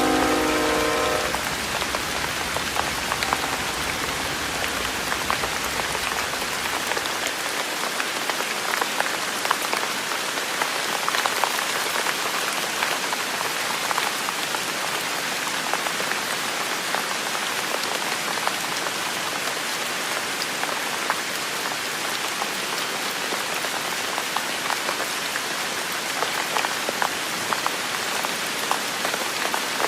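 Steady rain falling, with many drops ticking on a hard surface. The tail of a distant train horn chord stops about a second in, and a low rumble dies away after about seven seconds.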